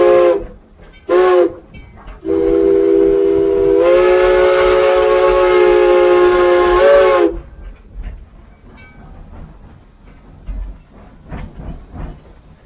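Steam locomotive chime whistle blowing: a blast ending right at the start, a short toot about a second in, then a long blast of about five seconds that sags in pitch as it opens and closes. After it come quieter, irregular knocks and clanks.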